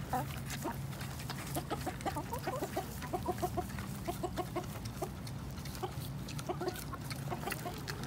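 Domestic hens clucking in quick runs of short notes, on and off.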